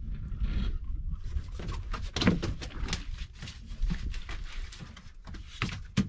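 Wind buffeting the microphone on an open boat, with a run of irregular sharp clicks and knocks, loudest about two seconds in and again near the end.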